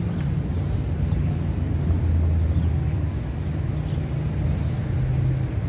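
Low, steady rumble of a running vehicle engine.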